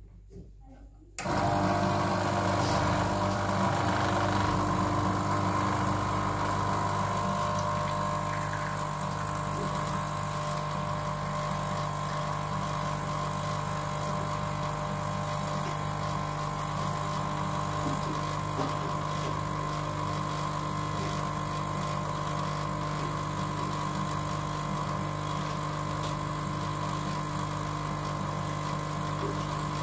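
BFC Perfetta espresso machine's pump cutting in about a second in and running with a steady hum while a double espresso extracts.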